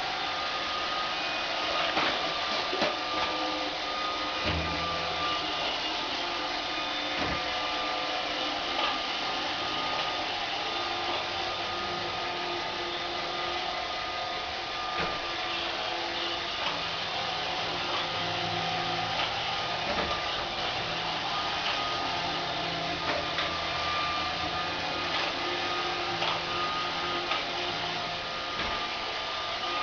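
AMI BB-8 robot vacuum running steadily, its motor giving a continuous whir with a thin whine. Occasional light knocks and a low hum come and go.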